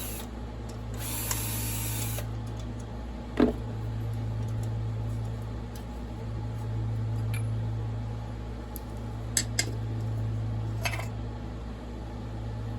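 Steady low hum in the workshop, with a short hiss about a second in and a few light clicks and knocks of hand tools and parts as the chainsaw is taken apart.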